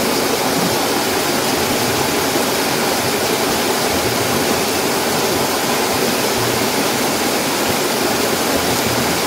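Small waterfall pouring over rocks, heard close up at its base: a steady, loud rushing of water.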